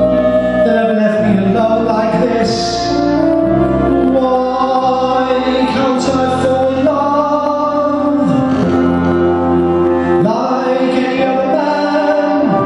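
A man singing a slow ballad into a microphone in long, drawn-out notes with vibrato, over instrumental backing.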